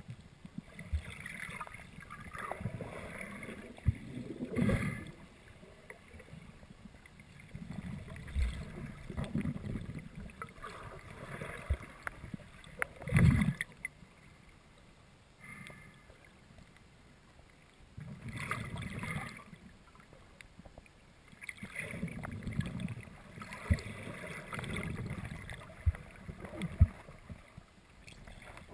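Muffled underwater water noise from a GoPro in its waterproof housing, swelling and fading in surges of a few seconds, with a few sharp knocks against the housing; the loudest knock comes about halfway through.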